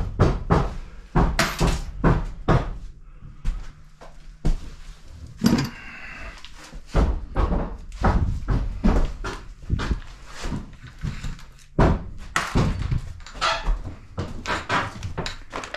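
Irregular knocks, thuds and clatters of hand work on a plywood subfloor: tools and boards being handled and set down, with footsteps on the floor.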